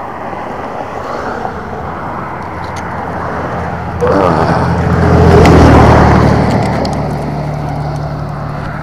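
A car passing close by. Its engine and tyre noise rise sharply about four seconds in, peak a little past halfway and fade away, over a steady background hiss.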